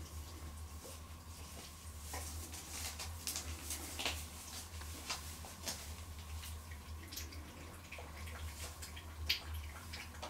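Cotton de Tulear puppies scuffling and wrestling on a plastic sheet: scattered light clicks and crinkles, with a sharper click about four seconds in and another near the end, over a steady low hum.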